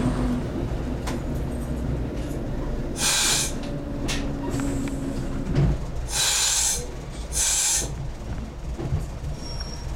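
Single-car, two-engine diesel multiple unit heard from the cab, its diesel engines running with a steady low rumble. The engine note drops away a little over halfway through. Three short bursts of hiss come at about 3, 6 and 7.5 seconds.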